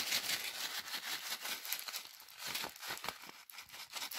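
Small plastic packet crinkling as it is handled and opened: a dense run of irregular crackles and rustles.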